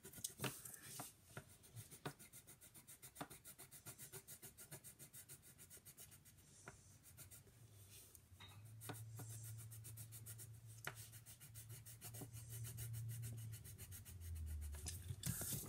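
Quick back-and-forth coloring strokes of a black crayon-type drawing tool on paper, about five a second, as cow spots are filled in black. A low steady hum joins for several seconds in the second half.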